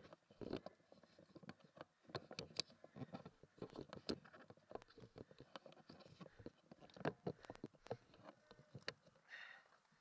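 Irregular light clicks and knocks from an airsoft gun being carried and handled as the player moves.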